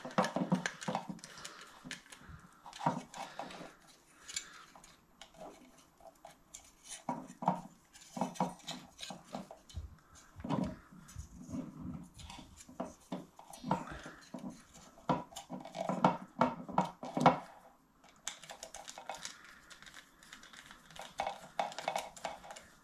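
Small screwdriver working the screws of a circuit board's screw terminal block while wires and the board are handled: irregular light clicks, taps and scrapes with a few soft knocks.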